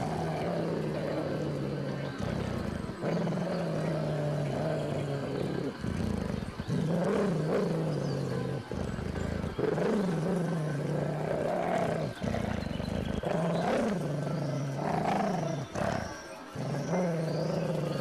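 Large dog growling in long, low, throaty growls of a few seconds each, separated by short gaps for breath. In a few of them the pitch swings up and down.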